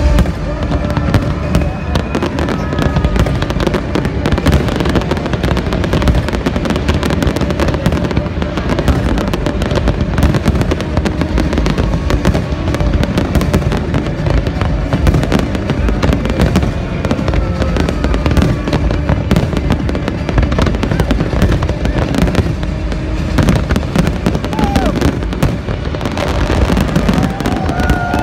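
Large aerial fireworks display: a dense, continuous barrage of bangs and crackling bursts with no let-up.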